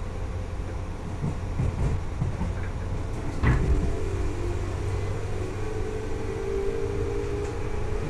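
JR West 201-series electric commuter train running, heard inside the car: a steady low rumble, one thump about halfway through, and after it a steady whine from the chopper-controlled traction motors that grows stronger toward the end.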